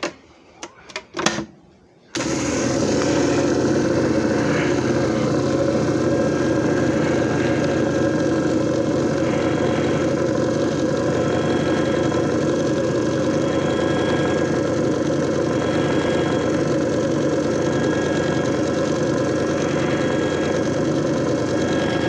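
A few clicks, then a JFJ Easy Pro disc repair machine switches on about two seconds in and runs with a steady motor hum.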